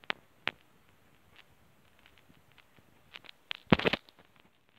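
Scattered light taps close to the microphone, then a short scuffling rustle about three and a half seconds in, the loudest sound, and one more tap near the end.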